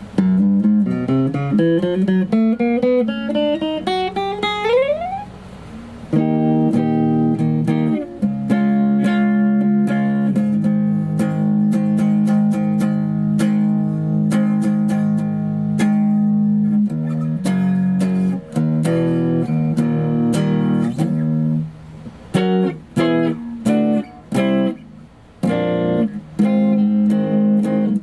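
Schecter C-1 electric guitar, tuned a half step down, played plugged in as a test after its setup. A quick rising run of notes comes first, then held chords, then a choppy, stop-start riff.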